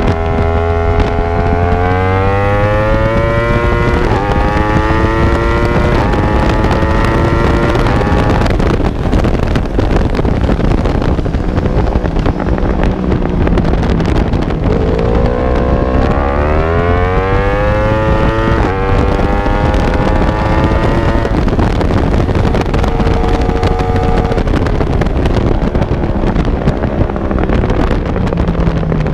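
Racing motorcycle engine accelerating hard through the gears, its revs climbing and dropping at each upshift about every two seconds, in two runs of several gears each. Heavy wind rush on the onboard microphone runs under the engine, and the engine is quieter and steadier between the runs and near the end.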